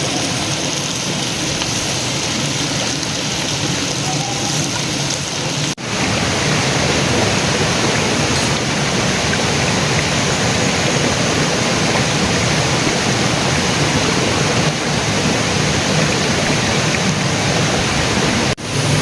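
Steady rushing water, an even hiss that briefly cuts out about six seconds in and again near the end.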